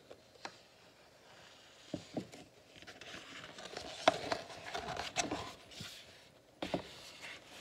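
Pages of a large picture book being turned by hand: paper rustling and sliding, with a few light taps and clicks, the rustle strongest in the middle.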